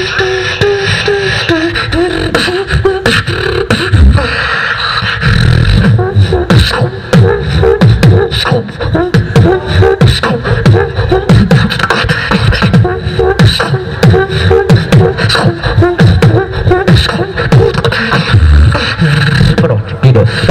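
Solo vocal beatboxing amplified through a handheld microphone and PA: rapid kick and snare sounds with deep bass hits in a dense rhythm, with a wavering pitched vocal line over the first few seconds.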